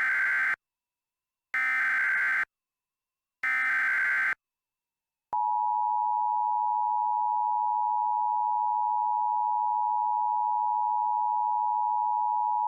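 Three buzzy Emergency Alert System SAME header data bursts, each just under a second long and about two seconds apart. About five seconds in, the steady two-tone EAS attention signal (853 and 960 Hz) begins. This is the opening of a new emergency alert.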